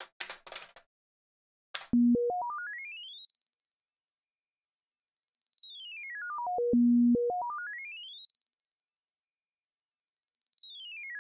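Software synthesizer playing the harmonics of a sawtooth wave one at a time as pure sine tones, stepping up the harmonic series from the low fundamental to a high whistle and back down, twice over. It lingers longest on the lowest and highest harmonics and races through the middle ones. A few keyboard clicks come just before it starts.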